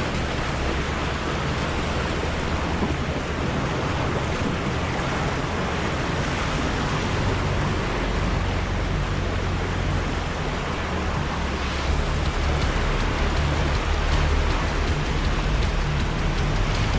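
Off-road vehicle driving with a low, steady engine drone under a steady rushing noise.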